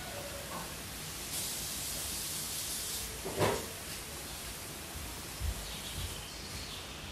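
Steady hiss of room noise, with one short knock about three and a half seconds in and a couple of faint low thumps later.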